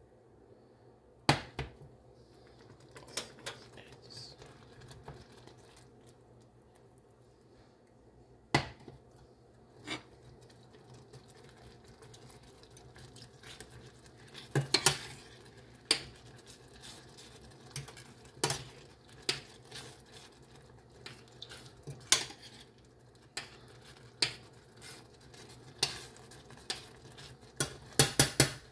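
Metal spoon stirring a stainless steel saucepan of cooking blueberries, clinking sharply against the pot's side and rim. The clinks come only now and then at first and turn quick and frequent about halfway through.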